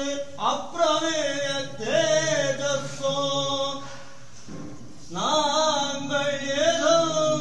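A solo voice singing a Tamil devotional hymn in long, gliding melodic phrases, with a short pause a little past halfway.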